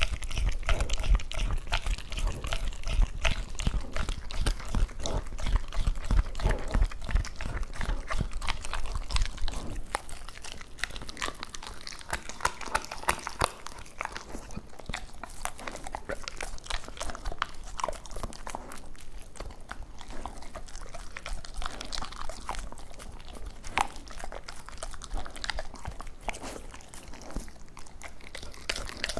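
Labrador retriever chewing and crunching raw duck on the bone close to a microphone: a dense run of wet chews and bone cracks. It is louder for about the first ten seconds, then softer as the dog's head moves back from the microphone.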